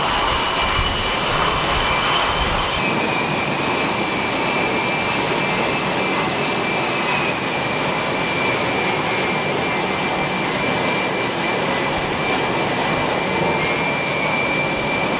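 F/A-18 Hornet's twin jet engines running: a steady, loud rush of noise with a high whine held over it. About three seconds in, the deep low rumble drops away while the whine carries on.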